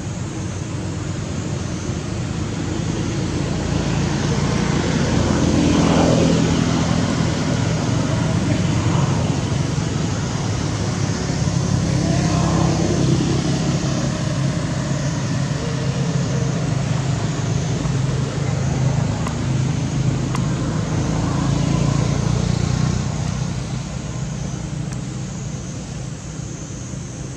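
Road traffic: motor vehicles passing one after another, the engine noise swelling and fading away three times, each pass dropping in pitch as it goes by.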